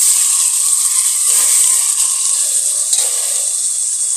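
Sliced onions sizzling steadily in hot oil in an aluminium pressure cooker as they are sautéed toward golden brown.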